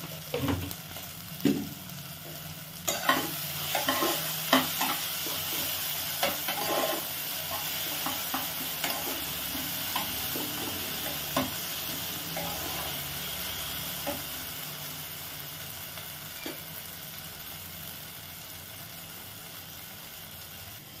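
Spiced masala paste frying in a pot on low flame while a spatula stirs and scrapes it: a steady sizzle with irregular scraping strokes. This is the bhuna (frying-down) stage of a Bengali curry base, cooked until the oil separates. The sizzle fades over the last few seconds.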